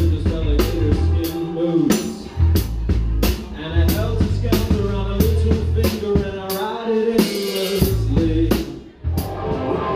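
Live rock band playing: a drum kit with kick, snare and cymbal hits over bass and electric guitar, with a cymbal wash about seven seconds in and a brief break just before the end.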